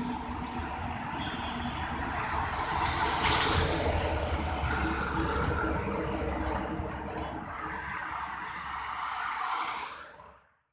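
Heavy truck traffic on a highway: engine hum and tyre noise swell as a vehicle passes close, loudest about three and a half seconds in. The sound then eases off and fades out just before the end.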